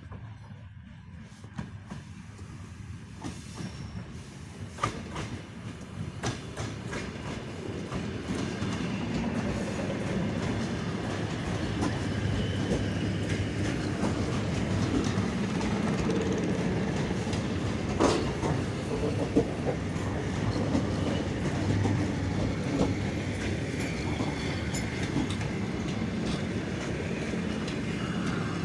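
Six-car ED9M electric multiple unit approaching and running past close by: a rumble that builds over the first ten seconds or so and then holds steady, with the wheels clicking over rail joints and a few sharp knocks.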